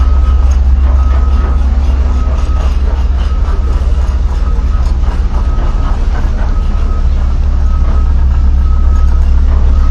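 Heavy machinery's deep, steady rumble, with a high warning beep repeating about every second and a half.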